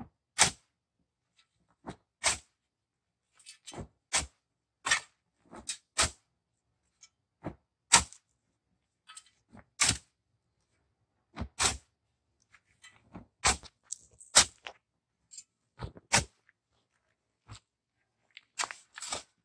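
A long-handled shovel digging into dry, hard-packed dirt as hard as concrete: short, sharp strikes and scrapes of the blade at irregular intervals, one every second or two and sometimes several close together.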